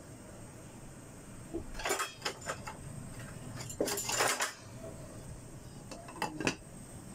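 Glass saucepan lid clattering and clinking against the metal pot as it is handled and set on, in three short bursts of knocks.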